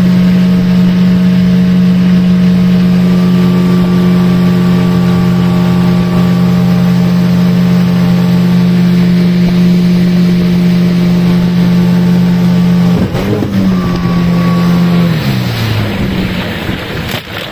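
Boat's outboard motor running steadily under way, then throttled back about thirteen seconds in, its pitch dropping in two steps as the boat slows.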